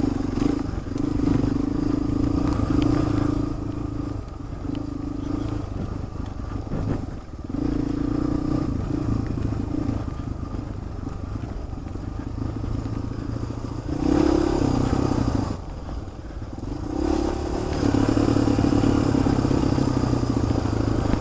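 Motorcycle engine running while riding, its level rising and falling with the throttle, with some rattling and scraping from the ride.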